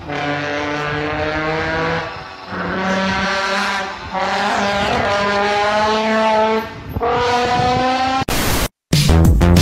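Layered, heavily distorted effects audio: sustained horn-like droning tones held for a second or two at a time, changing pitch between segments. Near the end it cuts out briefly and comes back as a harsh burst of noise.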